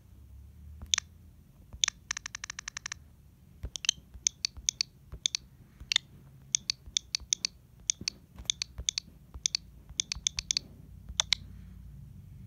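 A run of sharp, irregular clicks, several a second, with a fast even rattle of clicks lasting about a second near two seconds in, over a faint low hum.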